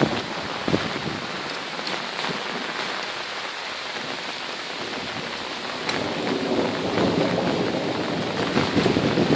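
Steady rain falling, an even hiss that grows louder about six seconds in.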